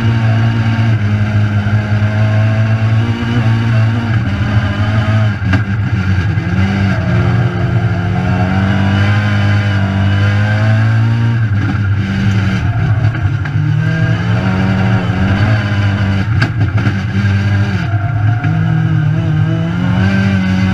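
Rallycross car engine, heard from inside the caged, stripped cabin, running hard around the track. Its pitch climbs and then drops back several times as the car accelerates and slows.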